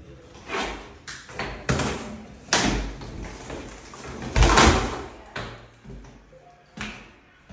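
A sheet of several layers of old vinyl flooring being torn up and lifted off wooden floorboards by hand: about six separate bursts of tearing, crackling and flexing, the loudest a little past halfway.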